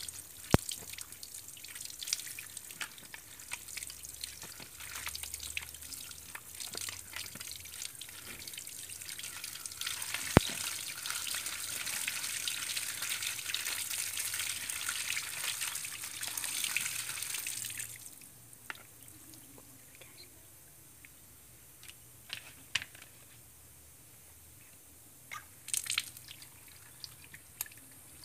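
Tap water running and splashing through a plastic colander as eggs are rinsed in it, getting louder before the splashing stops about two-thirds of the way through. Scattered drips and a few light knocks follow.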